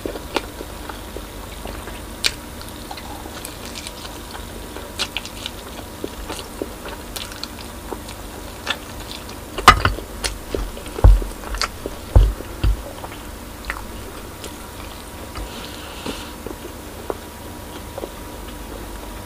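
Close-miked chewing of braised pork spare ribs eaten by hand, with many small wet clicks and smacks. Around the middle come a few loud, low thumps, the loudest sounds here.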